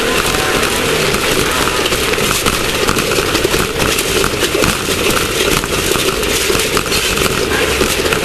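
Class 1600 off-road race car's engine running hard and steadily, under a constant rattle and clatter of the car over rough ground.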